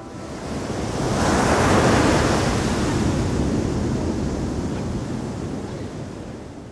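Atlantic surf breaking on the shore, a loud wash of noise that swells about a second in and slowly ebbs away.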